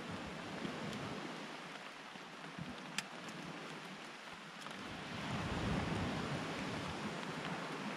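Pacific Ocean surf washing ashore: a steady rush of noise that swells louder for a couple of seconds about five seconds in. A single sharp click sounds about three seconds in.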